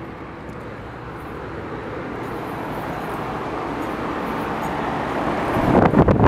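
Steady mechanical hum and rushing noise that grows gradually louder, then wind buffeting the microphone near the end.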